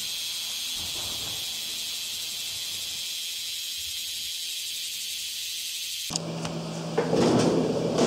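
Cicadas buzzing, a dense steady high-pitched drone that cuts off abruptly about six seconds in. It gives way to a steady low hum with knocks and rustling of things being handled, loudest near the end.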